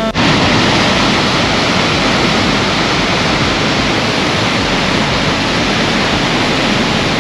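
A loud, steady rushing noise with no distinct events in it, starting abruptly just after the beginning.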